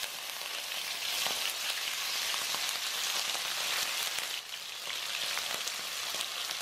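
Raw chicken strips sizzling steadily as they fry in hot vegetable oil in a wok.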